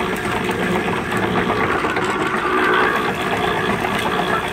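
Belt-driven sugarcane roller mill running steadily under power as cane stalks are crushed between its steel rollers to press out the juice, a continuous mechanical noise with a fast, even ticking.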